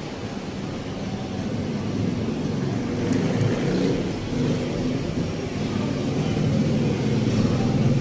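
Road traffic: car engines and tyres passing, a steady rumble that grows louder toward the end.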